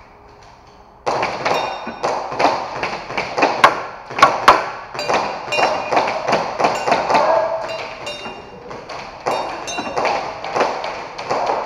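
Airsoft pistol shots with BBs striking a row of knock-down plate targets, the plates thudding and clinking as they tip over; a fast, irregular string of sharp hits starting suddenly about a second in.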